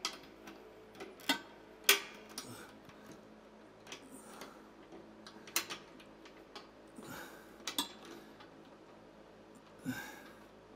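Irregular metallic clicks and clinks of a 10 mm spanner and socket knocking against small bolts and nylon locking nuts as they are fiddled into place by hand.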